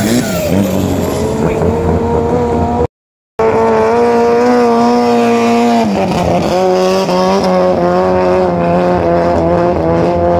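Racing longtail boat's car engine running hard at high revs, a steady buzzing drone that drops to a lower pitch about six seconds in. The sound cuts out briefly just before the three-second mark.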